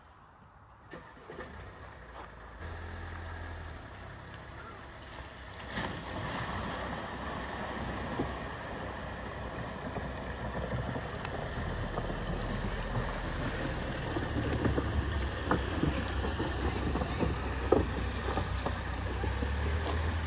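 A Volkswagen Sharan driving slowly through floodwater: a low engine hum under the rush and slosh of water, getting gradually louder.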